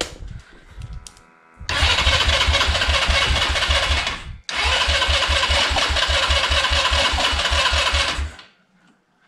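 A 200 cc GY6 engine turned over by its electric starter in two long bursts of cranking with a brief break between, a steady rapid beat, and it never fires: the ignition coil and spark plug lead were left disconnected.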